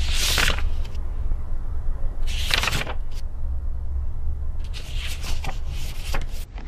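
Paper rustling as a ring binder is handled, in short sweeps at the start, about two and a half seconds in, and in a quick cluster near the end, over a steady low hum.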